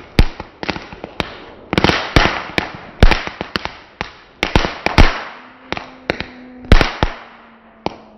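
Consumer fireworks going off: an irregular series of loud sharp bangs, about two a second, each followed by a crackling hiss. The bangs thin out near the end.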